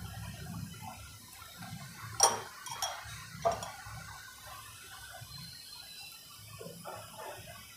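Metal spoon spreading Schezwan chutney on a slice of bread on a plate, with three sharp clinks of the spoon against the plate between about two and three and a half seconds in and a few fainter taps near the end.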